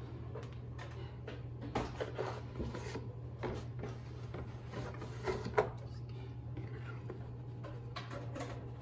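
Scattered clicks and knocks of a hard plastic part being handled and turned in the hands, over a steady low hum.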